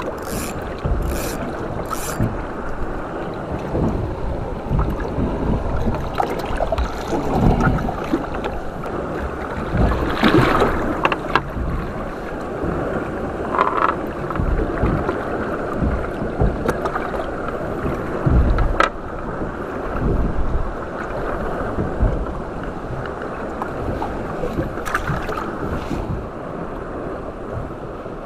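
Water lapping and slapping against the hull of a small drifting boat, with wind buffeting the microphone. A few short knocks or clicks stand out now and then.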